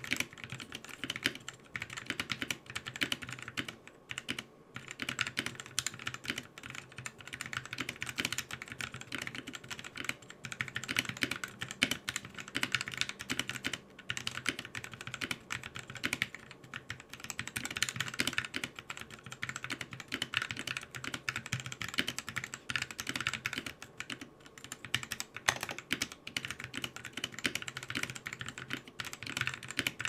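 Continuous typing on a Drop Carina 60% mechanical keyboard fitted with Gateron Cap Milky Yellow linear switches: a dense run of keystroke clacks, with a short pause about four seconds in.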